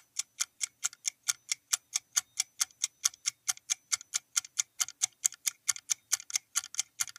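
Clock-style ticking of a quiz countdown-timer sound effect, marking the time left to answer: short, even, quick ticks, about five or six a second.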